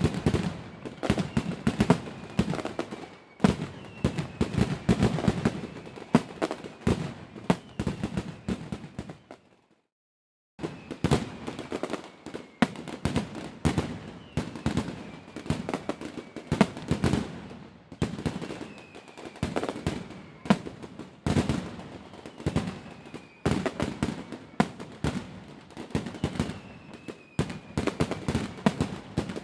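Fireworks display bursting in rapid succession: a steady barrage of bangs and crackles, with the sound dropping out completely for about a second near the middle.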